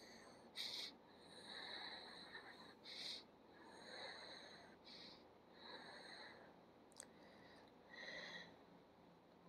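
Near silence with faint breathing close to the microphone, about once a second, and a small click about seven seconds in.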